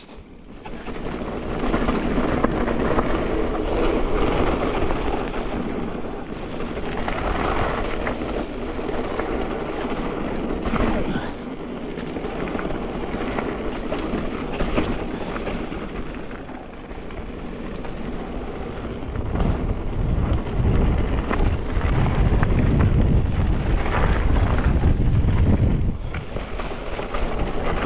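Mountain bike being ridden along a rough dirt forest trail: tyre roar and bike rattle over the ground, with wind rumbling on the camera microphone that grows heavier from about two-thirds of the way through.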